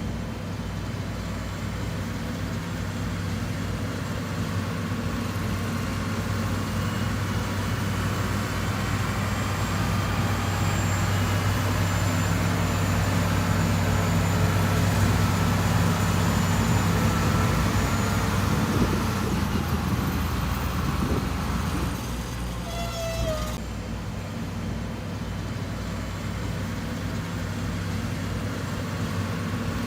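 Heavy diesel engine of earthmoving machinery running steadily with a low hum, growing louder toward the middle and easing off about two-thirds of the way through, with a brief high chirp soon after.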